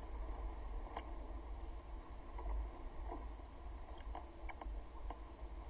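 Wind buffeting the microphone on the deck of a sailing ship under sail, over a steady rush of wind and water, with a few faint short squeaks scattered through.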